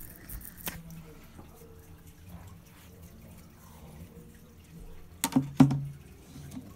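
Water being handled in a hermit crab tank: faint trickling and dripping, with two sharp, loud bursts a little after five seconds in.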